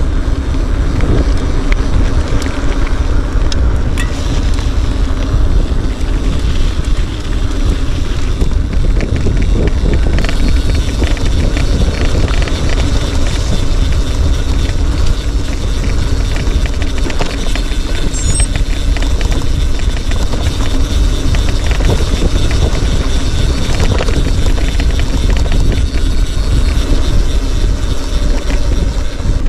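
Steady rumble of a moving vehicle, with wind noise on the microphone.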